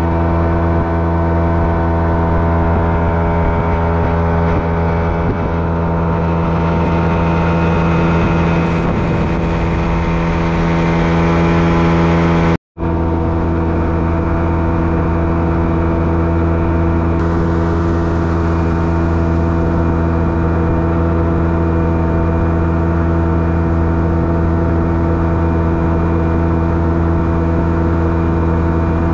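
Boat motor running steadily under way, an even engine drone with many overtones. It drops out for a moment just before halfway and comes back unchanged.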